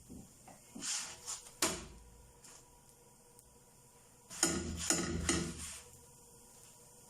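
Kitchen clatter of cookware being handled: two short runs of knocks and scrapes, about a second in and again after four seconds.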